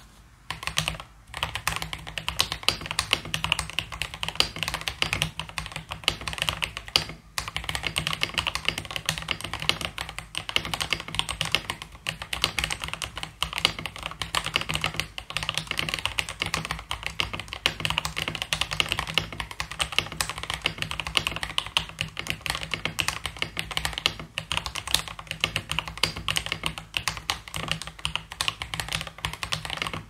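Continuous fast typing on an AULA F3032 gasket-mount mechanical keyboard with pre-lubed AULA tactile switches and transparent PC keycaps: a dense run of solid-sounding keystrokes. It starts about a second in and breaks off briefly about seven seconds in.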